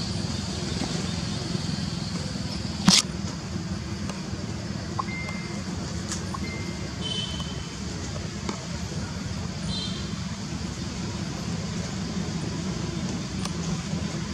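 Steady low outdoor background rumble, with one sharp click about three seconds in and a few faint, short high chirps later on.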